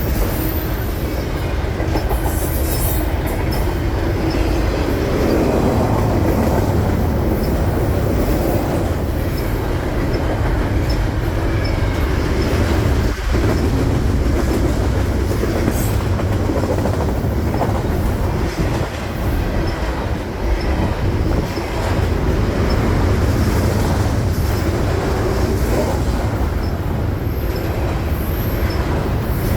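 Freight train cars rolling steadily past: a continuous rumble of steel wheels on rail with the clickety-clack of wheels over rail joints and a faint wheel squeal now and then.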